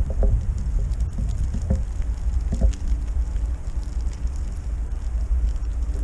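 Low rumble of wind on the microphone as a 20-inch unicycle is ridden along a dirt path, with faint ticks and crunches from the tyre rolling over grit. A faint steady hum comes in about two and a half seconds in.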